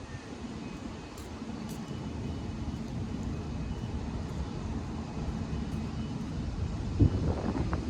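City street ambience dominated by a steady low rumble of distant traffic, with one sharp thump near the end.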